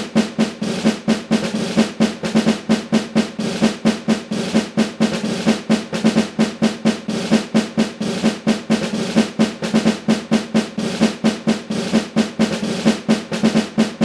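Marching snare drum playing a continuous cadence of rolls broken by regular accented strokes, several accents a second.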